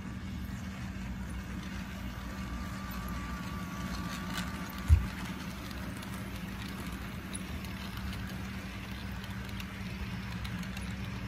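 Steady low hum of a model railroad's Chessie System diesel locomotives running as they approach, with one sharp thump about five seconds in.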